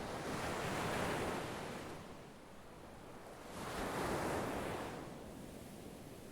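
Ocean waves breaking on a beach: two waves wash in about three seconds apart, each swelling into a rushing surge and then fading back.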